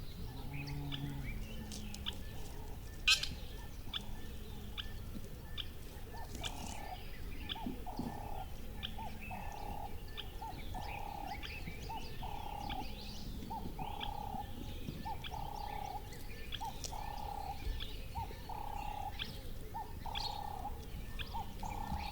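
Birds chirping: many short, high chirps throughout, over a steady low background noise. From about six seconds in, a lower call repeats roughly once a second. There is one sharp click about three seconds in.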